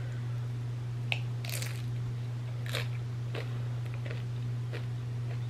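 Bites into a hard taco shell and chewing: several separate crunches spread through, with a steady low hum beneath.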